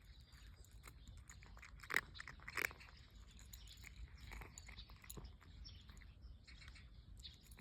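A cat chewing and crunching its food: a steady run of small crisp clicks, with two louder clicks about two seconds in.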